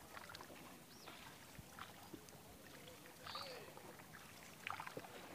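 Faint splashing and dripping of a wooden paddle stroking through floodwater beside a small wooden boat, with a few scattered soft clicks and short chirps.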